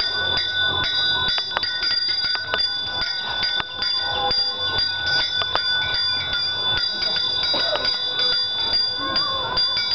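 Brass puja hand bell (ghanta) rung continuously with quick, even clapper strokes, giving a steady high ringing, as lamps are waved before the cow in the arati offering.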